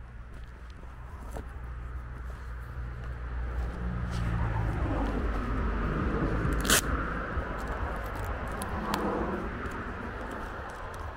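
Footsteps of someone walking, over a low rumble that swells and then fades over several seconds, with one sharp click just past the middle.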